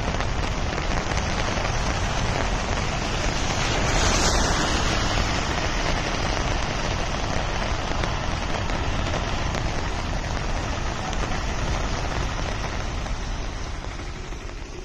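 Heavy rain falling steadily, an even loud hiss that swells briefly about four seconds in.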